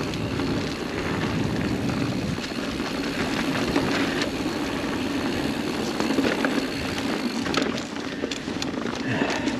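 Mountain bike rolling fast down hard-packed dirt singletrack: a steady rush of tyre noise and wind on the camera microphone. Near the end comes a run of sharp clicks and rattles from the bike.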